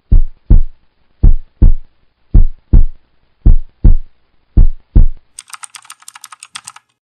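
Heartbeat sound effect: five double thumps, lub-dub, a little over one beat a second. Near the end it gives way to a quick run of keyboard typing clicks as text is typed onto the screen.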